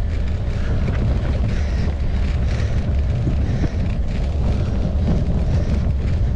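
Wind buffeting the microphone of a mountain bike's onboard camera while riding, mixed with riding noise: a loud, steady low rumble with a hiss on top.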